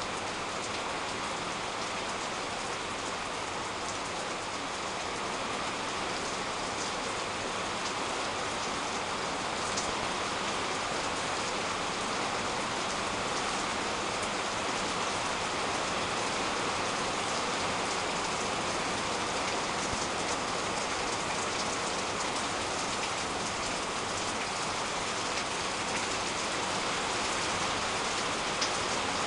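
Heavy rain pouring steadily onto garden foliage and roofs, an even hiss with a few faint drop ticks, growing slightly louder toward the end.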